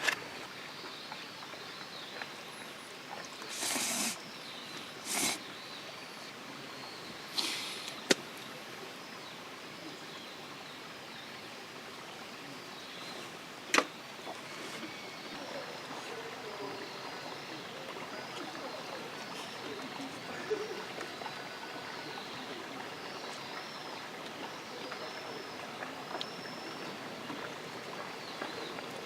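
Outdoor forest ambience: a steady hiss with faint small birds chirping, mostly in the second half. A few short rustles early on and two sharp clicks, the louder one about 14 seconds in.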